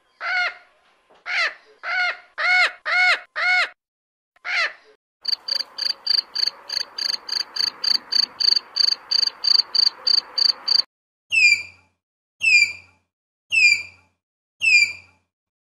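A green-winged macaw gives about eight harsh squawks. Next, a katydid stridulates in a rapid, even, buzzing pulse of about five strokes a second for several seconds. After that, a tapir gives five short, high squeals, each falling in pitch, about a second apart.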